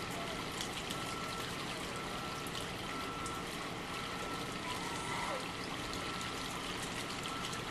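Steady running, trickling water in a shark holding pool.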